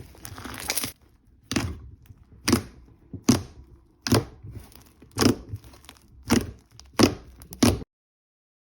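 A brief rustling swell, then a series of about eight sharp thunks roughly a second apart, the sound of close-miked cutting or pressing on a hard surface; the sound cuts off suddenly near the end.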